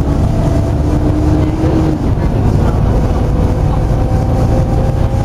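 Volvo B7TL double-decker bus's 7-litre six-cylinder diesel running with a loud cooling fan, a deep drone under a steady whine. The whine fades about two seconds in and comes back higher about a second later.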